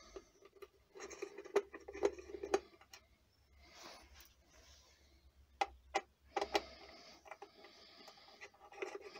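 Small hand screwdriver taking T20 Torx screws out of an engine control unit's casing: faint scraping with scattered light clicks of the bit and the loose screws.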